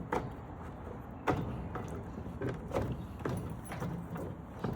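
Short plastic clicks and knocks of a bulb socket being twisted and locked into a pickup tail light housing, with the sharpest click about a second in.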